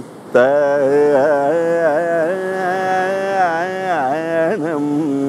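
A man's voice singing Carnatic music in Raga Bhairavi, improvising thaanam syllables over a tambura drone: after a short breath, one long held phrase full of wavering ornaments, ending in a few quick short notes.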